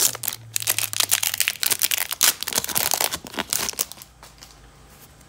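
Foil wrapper of an Upper Deck hockey card pack crinkling and tearing as it is pulled open by hand, stopping about four seconds in.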